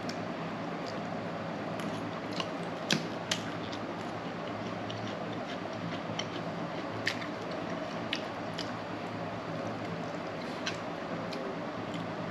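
A meal being eaten: scattered sharp clicks, as of utensils against a bowl or plate, with soft eating sounds over a steady background hiss.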